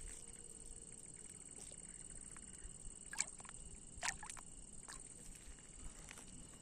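Faint small splashes and drips of water as a hand handles a turtle in shallow water, with a few sharp little drips about three and four seconds in, over a steady high hiss.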